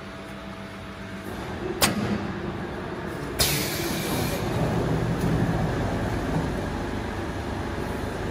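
Melt blown filter cartridge end cap welding machine cycling: a sharp clack about two seconds in, then a short burst of air hiss from its pneumatics about a second and a half later. A steady machine hum runs beneath both.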